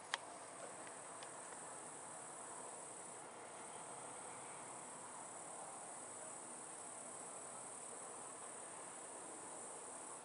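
Crickets chirring steadily and high-pitched in the night, with a single sharp click just after the start and a few faint ticks. No thunder is heard.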